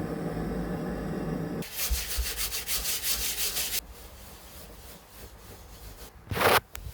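Abrasive sanding on wood: a loud, rough, rhythmic rubbing from about one and a half seconds in until almost four seconds, after a steady low machine hum that stops as the sanding begins. A short loud scrape near the end.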